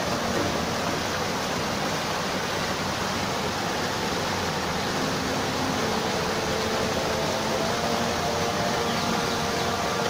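Steady rushing and splashing of a small waterfall tumbling down rockwork into a shallow pool.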